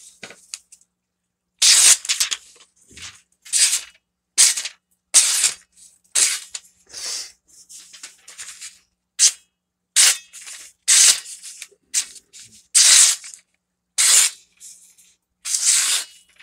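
A freshly sharpened old high-carbon steel machete slicing through a hand-held sheet of newspaper, a dozen or so quick cuts, each a short hiss of parting paper: a sharpness test of the new edge.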